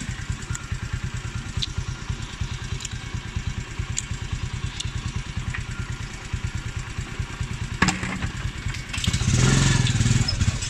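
Small motorcycle engine running steadily with a fast low pulsing beat while riding over a dirt road. There is a sharp knock about eight seconds in, and the engine grows louder near the end.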